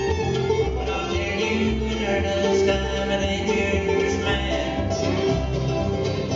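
Acoustic bluegrass band playing a song at a steady drive, with banjo, mandolin, fiddle and bass.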